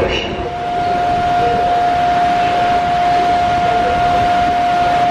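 Electric locomotive (PKP Intercity EU44 Husarz, a Siemens Taurus) standing at the platform, giving off one steady high-pitched whine from its electrical equipment, over a background hiss.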